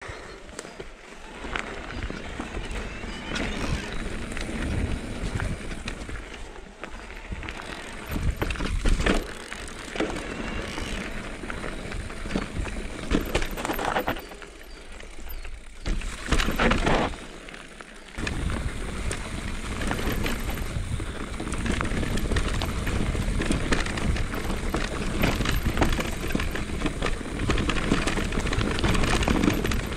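Mountain bike riding down a dirt singletrack: tyres rolling over dirt and stones, with the bike knocking and rattling over bumps and wind rushing on the microphone. It eases off briefly twice around the middle.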